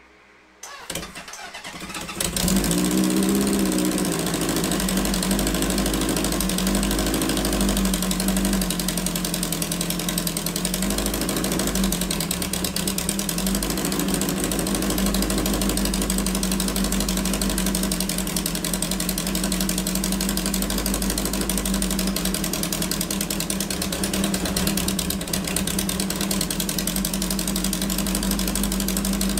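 Honda CB750's air-cooled inline-four starting easily about two seconds in. It is blipped up and down a few times, then settles to a steady idle.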